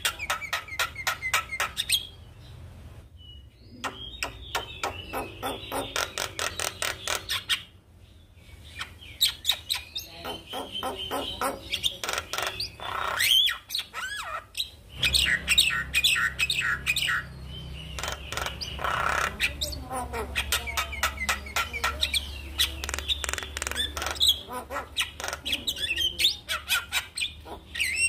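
Javan myna singing: quick runs of clicking, chattering notes mixed with whistles, in several bouts with short pauses between them.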